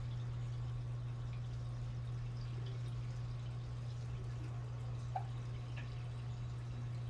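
A steady low hum with a few faint scattered ticks, one slightly clearer click about five seconds in.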